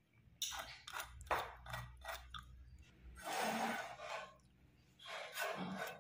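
Short scraping strokes and light knocks of hand work on a wooden plane body: marking out along a try square and handling the block. There are several quick strokes in the first half, then two longer scrapes.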